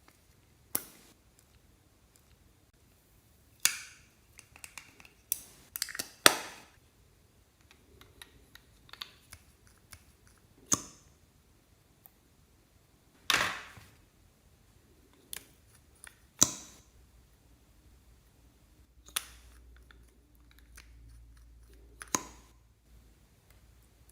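Clear slime being pressed and worked by hand, giving sharp popping clicks as trapped air bursts. There are about a dozen separate pops at irregular gaps, with a quick flurry of them a few seconds in.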